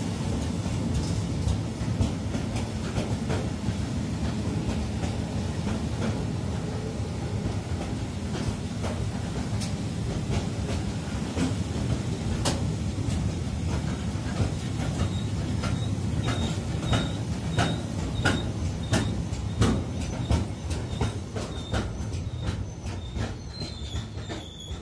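Freight train of covered hopper wagons rolling past close by: a steady low rumble with a rapid run of sharp wheel clacks over the rail joints. It fades away near the end as the last wagon goes by.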